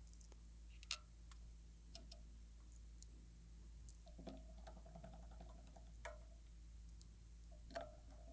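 Precision screwdriver work on a MacBook Pro's logic board: sparse, faint clicks and light taps of the small driver and screws against the aluminium chassis, the sharpest about a second in. A faint steady tone sounds for about a second and a half a little past the middle and again briefly near the end.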